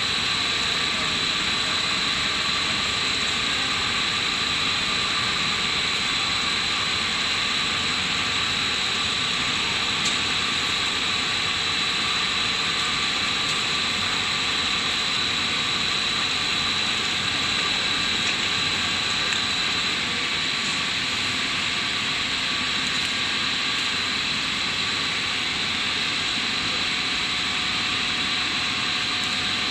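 Steady running noise of a PET sheet extrusion line: a constant mechanical whir with a steady high-pitched whine on top.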